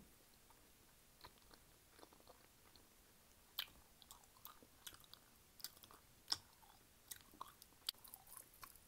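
Faint chewing of honeycomb: soft, irregular mouth clicks. They are sparse at first and come more often from about three and a half seconds in.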